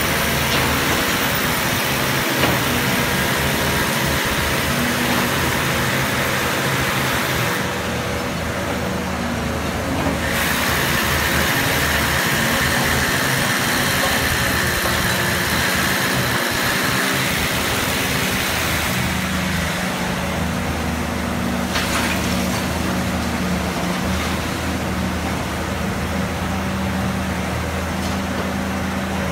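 Cat 320B excavator's diesel engine running under load while it digs and swings, its note shifting several times as the hydraulics are worked.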